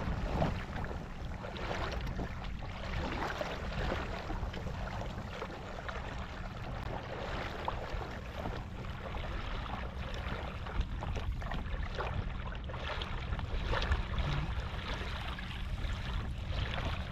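Water lapping and splashing against the hull of a small sailing dinghy moving slowly through calm water, with a steady low wind rumble on the microphone.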